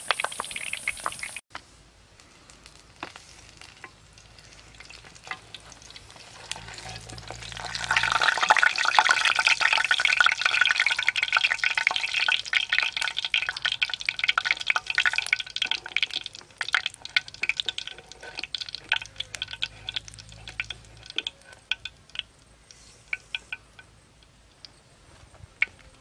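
Small birds deep-frying in hot oil in a clay pot: a dense sizzle full of sharp crackles that swells up about a third of the way in, then thins out to scattered pops and dies down near the end.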